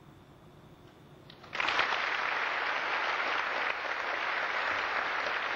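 A quiet moment, then audience applause breaks out suddenly about a second and a half in and keeps going steadily.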